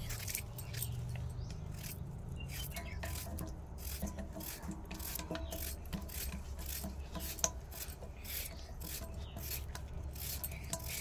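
Small kitchen knife scraping along a raw potato as it is peeled by hand, in a run of short, repeated scraping strokes.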